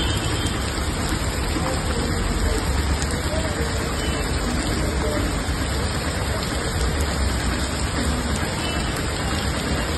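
Heavy rain pouring down onto a waterlogged street: a steady, even hiss with a low rumble underneath.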